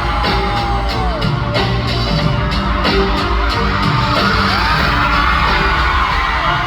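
Loud music with a steady beat, with fans screaming and yelling over it.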